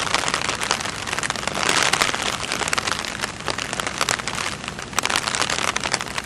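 Steady rain falling: a dense hiss full of many sharp clicks of drops.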